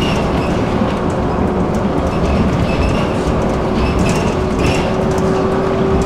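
Tram running along its track, heard from on board: a steady rumble of wheels on rail with light clicks, and a steady hum that grows stronger about four and a half seconds in.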